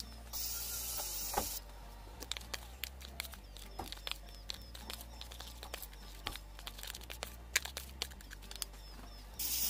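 Metal stirrer working foamy glue-and-shaving-foam slime in a plastic container: irregular wet clicks and crackles as the foam is folded. A short hiss about a second long comes just after the start, and another near the end.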